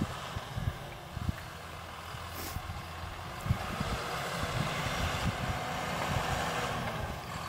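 John Deere 6930 tractor's six-cylinder diesel engine running under load while pulling a seed drill through the soil, getting louder from about halfway as it draws near. Irregular low thumps come and go throughout.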